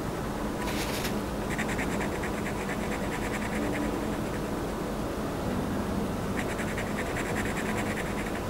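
Fine-tip ink pen scratching on a paper tile in quick back-and-forth strokes, filling a small square with solid ink. The strokes come in two runs of several a second, the first starting about a second and a half in and the second near the end.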